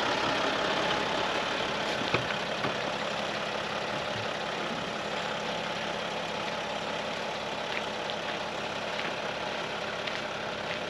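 Mercedes Sprinter 4x4 camper van's engine running steadily as the van rolls slowly to a stop and idles, with a few faint clicks.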